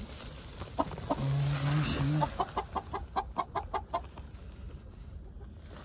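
Hens clucking: a low, drawn-out call about a second in, then a quick run of about a dozen short clucks.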